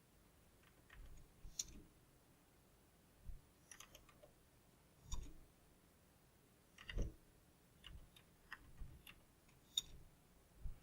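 Faint, irregular computer keyboard keystrokes and clicks, a few at a time with short gaps, over a very quiet room.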